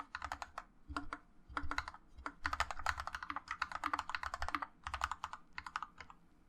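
GK61X 60% mechanical keyboard with Gateron Yellow linear switches being typed on, fast runs of keystrokes broken by short pauses.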